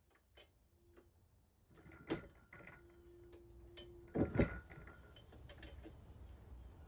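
A few light knocks and clicks of metal parts of a small compressor being handled, loudest about two seconds in and again just past four seconds.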